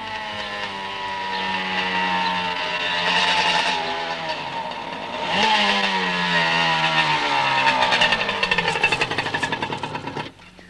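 Small motorcycle engine approaching, revving up twice, then slowing as it pulls up, its note turning choppy and uneven before it falls away near the end.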